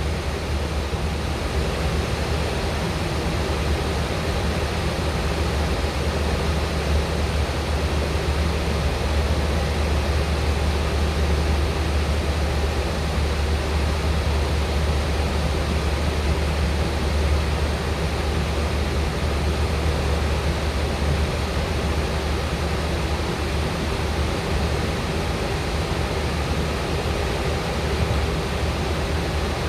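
Steady in-flight cabin noise of a Boeing 737: an even rush of engine and airflow noise over a strong low hum, unchanging throughout.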